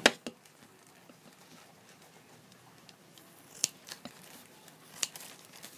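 Large scissors snipping into a plastic courier mailer bag. One sharp snip comes right at the start, then a quiet stretch, then three short snips near the end.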